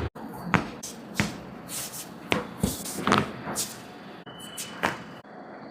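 A string of irregular sharp knocks, slaps and clicks with rustling, from hands working on a patient during a chiropractic adjustment.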